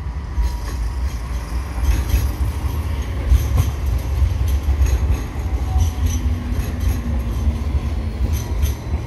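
Sydney Light Rail Alstom Citadis X05 tram passing close by: a steady low rumble with scattered sharp clicks and clacks from the wheels on the street track.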